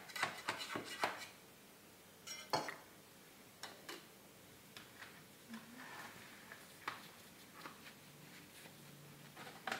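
A knife scraping and clicking around the rim of an aluminium cake pan, a quick run of clicks in the first second. After that come a few separate knocks and clinks as the pan and a plastic cooling rack are handled.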